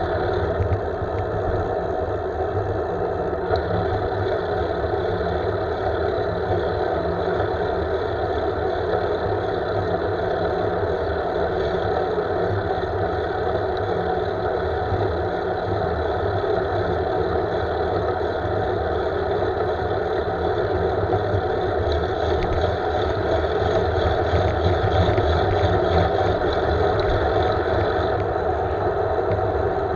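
Steady wind rush and road noise on a handlebar-mounted camera of a road bike riding at speed, with no breaks; it grows a little louder about three-quarters of the way through.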